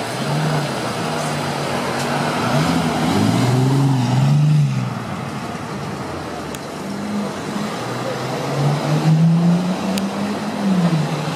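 Bentley Continental GT engine revving as the car drives off slowly, its note rising and falling twice, over street traffic noise.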